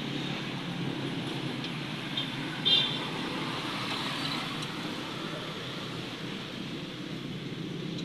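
Steady street traffic noise, with a sharp metallic clink about two and a half seconds in and a few fainter ticks, from a lug wrench worked on a pickup's rear wheel nuts.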